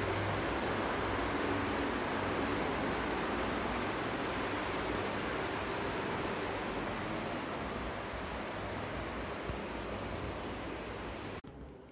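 Crickets chirping under a steady rushing noise; the rushing noise cuts off suddenly near the end, leaving the crickets' thin, steady high trill.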